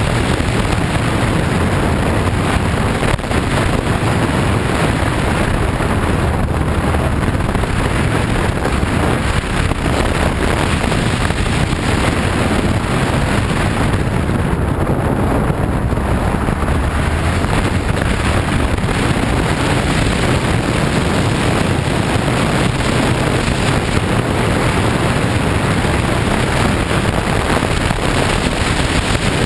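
Steady wind buffeting on a motorcycle-mounted camera's microphone, over the low drone of a BMW F 800 GS's parallel-twin engine at a steady cruise.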